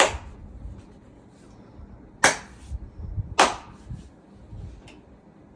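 Three short sharp slaps: one at the start, one a little over two seconds in, and a third about a second after that.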